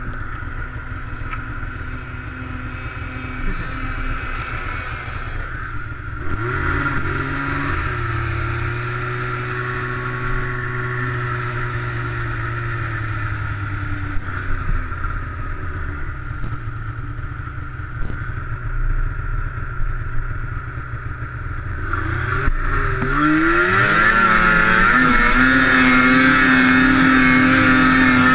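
Two-stroke snowmobile engine running, its pitch shifting with the throttle. About six seconds in it revs up, and near the end it climbs again to a louder, higher, steady whine.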